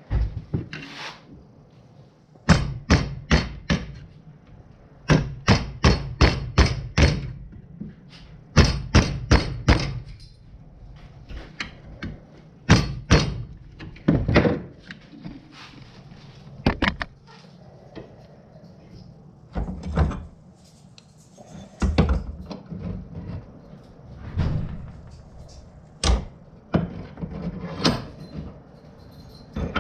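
Hammer blows on a steel hatchet head, driving the broken fiberglass handle out of its eye. The strikes come in quick runs of five to eight blows over the first ten seconds, then single blows and pairs every few seconds.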